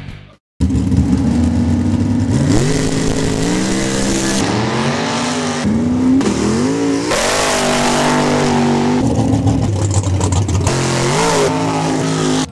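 Off-road race trucks' engines revving hard under acceleration, loud and continuous, climbing in pitch through several pulls and dropping back between them; it starts abruptly about half a second in.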